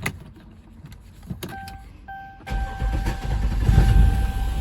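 A couple of clicks and an electronic warning tone, then about two and a half seconds in the 2011 Dodge Durango's 5.7 Hemi V8 starts and runs. The engine misfires on cylinder 5, which the owner puts down to a collapsed lifter and a worn camshaft lobe.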